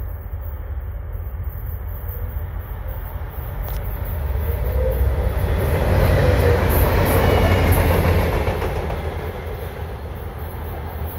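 A pair of Norfolk Southern diesel-electric locomotives, an EMD SD40-2 and a GE C40-9W, running light without cars and passing close by. Their engine rumble and wheel-on-rail noise build to a peak about six to eight seconds in, then fade as the units move away.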